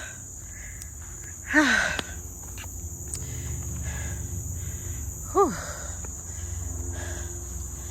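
Insects, crickets by their sound, trilling steadily in a high, even drone, with a low rumble underneath. Two short, loud calls falling in pitch break in, about a second and a half in and again past five seconds.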